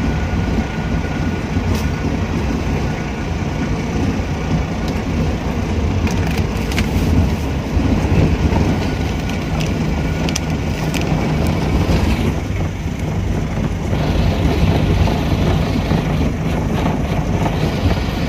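Engine and tyre noise heard from inside a moving vehicle on a rough narrow road, steady throughout, with a few light clicks and knocks from the cabin around the middle.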